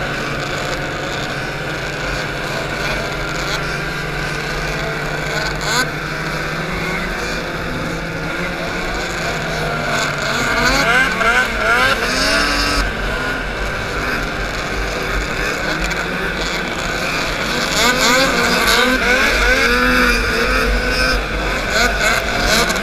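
Snowmobile engines running in a racing pack, heard from aboard one sled: a steady engine drone with other sleds' engines rising and falling in pitch around it, busier from about ten seconds in.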